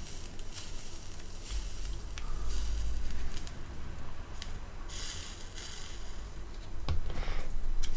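Stainless steel mesh wick and coil of a Steamboy Storm Rider 2.1 rebuildable atomizer sizzling and hissing in short spells as it is pulse-fired with e-liquid on it, with a few sharp ticks. The mesh is being pulse-oxidised.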